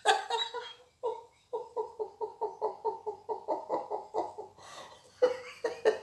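A woman laughing hard with her hands over her mouth: a quick run of short laughing bursts, about four or five a second, then a pause and more laughter near the end.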